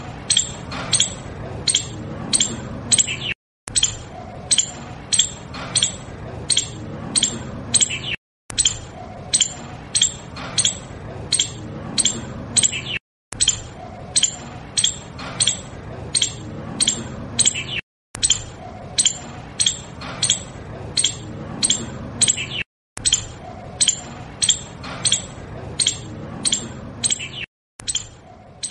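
Sharp, high-pitched animal chirps, about two a second, over a low background hum. It is a short recording of about five seconds looped over and over, with a brief dropout of silence between repeats.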